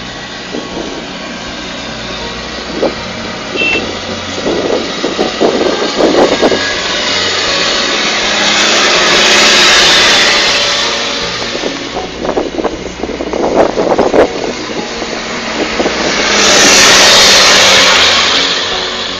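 Rail snowplough draisine running along the track, its engine working as its plough blade pushes through deep snow. Rushing noise swells up twice, about halfway through and again near the end, with runs of knocks and rattles in between.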